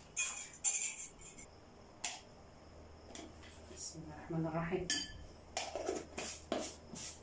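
A metal spoon clinking and tapping against glassware and a powder jar while custard powder is scooped, about ten short, irregular knocks and clinks.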